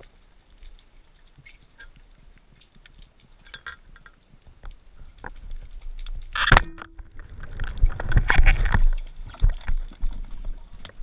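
Underwater speargun shot: one sharp, loud crack about six and a half seconds in, with a brief ring after it. A few seconds of loud churning water and knocks follow, and faint scattered clicks come before the shot.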